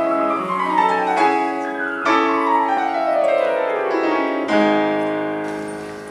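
Grand piano playing a classical passage, likely from a sonatina: quick downward runs over held notes, then a final chord about four seconds in that rings out and fades away.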